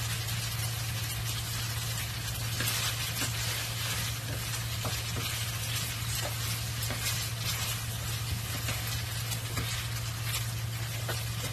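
Food sizzling and crackling steadily on the stove, with a steady low hum underneath.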